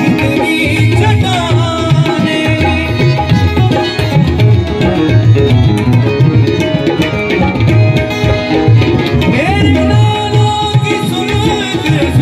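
Live qawwali music: tabla playing a steady rhythm with deep bass strokes over sustained harmonium chords, with gliding voice-like lines now and then.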